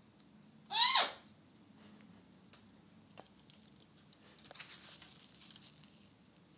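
A parrot gives one short, loud call about a second in, rising then falling in pitch. After it come faint scattered clicks and scratches of a green-winged macaw's claws and beak on a wooden dresser top.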